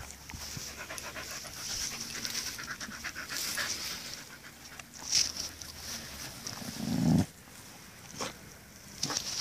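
Corgi panting in a fast, even rhythm, with a few short sharp sounds and one short low rumble a couple of seconds before the end.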